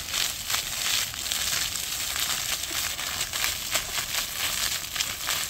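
Water from a single-jet plaza fountain shooting up and splashing back down onto tiled paving: a steady hiss of falling water with crackly spatter.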